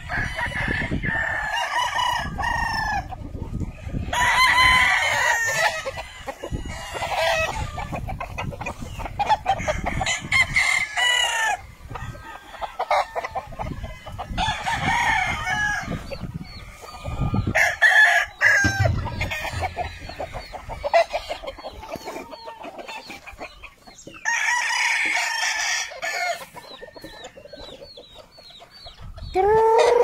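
Gamecock roosters crowing one after another, with long pitched crows every few seconds and softer calls between them.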